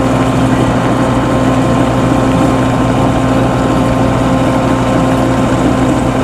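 Homemade combine harvester's engine running at a steady pitch, with heavy rain hissing over it.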